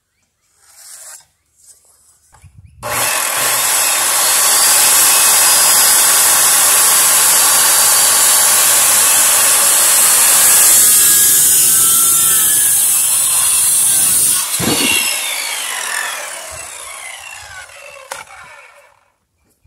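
Corded circular saw starting and crosscutting through a cedar slab in one steady, loud cut of about twelve seconds. A thump comes as the cut ends, then the blade winds down with a falling whine. Faint pencil-and-square scratching is heard just before the saw starts.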